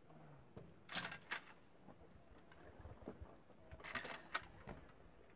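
Faint footsteps crunching on dry ground: two steps about a second in and two more about four seconds in.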